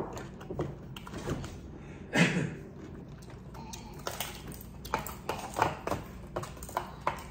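Light clicks and taps of metal chopsticks and a spoon as food is picked up and eaten, with a louder brief noise about two seconds in.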